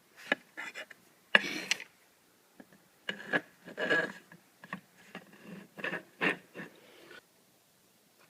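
Hand work on a homemade wooden wire-stripper jig: a sharp click, a longer scrape about a second and a half in, then a run of scrapes and knocks that stops about seven seconds in.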